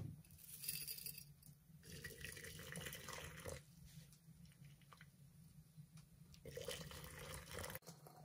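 Hot water poured from a stainless steel kettle into a glass teapot over loose herbs in its infuser basket, a splashing pour heard in a few separate spells.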